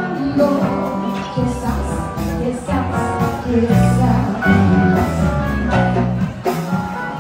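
Live band music with guitar and keyboard over a steady bass line, and a woman singing into a microphone.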